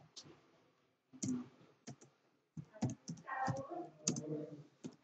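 Computer keyboard being typed on: about a dozen separate key clicks at an uneven pace, with short gaps between them.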